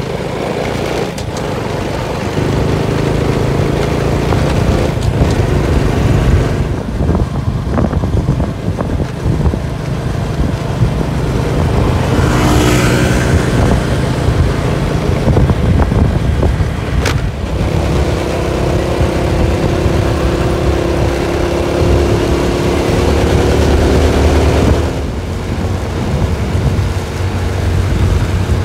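Motorbike engine running while riding, with wind rumble on the microphone. The engine note shifts, then holds a steady pitch for several seconds in the second half before dropping away.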